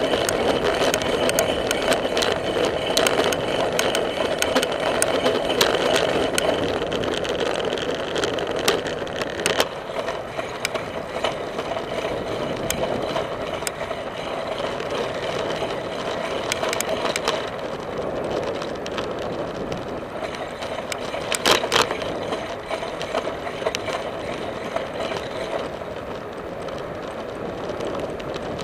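Bicycle riding on a paved path, heard from a camera mounted on the bike: steady tyre and wind noise, with frequent rattling and clicking from the bike over the bumps. A louder double clack comes about two-thirds of the way through.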